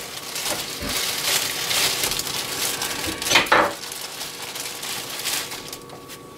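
Plastic bread bag rustling and crinkling as hamburger buns are handled and one is pulled out, with one louder crinkle about three and a half seconds in.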